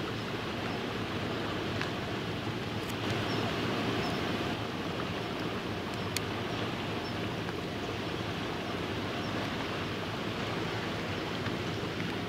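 Steady seaside background noise of wind and small waves lapping at the shore, with a single faint click about six seconds in.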